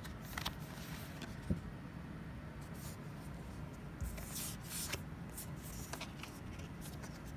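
Collector cards being handled: quiet rustling and sliding of card stock, with a couple of soft thumps as they are set down.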